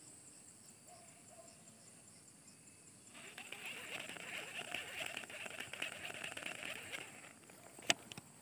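Shimano SLX fishing reel winding in line: a fast, even whirring rustle that starts about three seconds in and stops about a second before the end, followed by a couple of sharp clicks.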